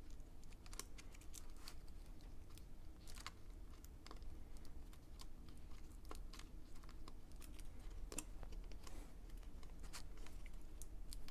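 Faint, irregular light clicks and taps of hands handling the laptop on the bench, some like keys being pressed, over a steady low hum.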